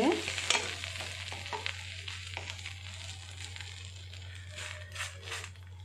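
Bread slice sizzling in ghee on a hot dosa griddle, with scattered light taps and scrapes as beaten egg is spread over it with a utensil. The sizzle fades gradually.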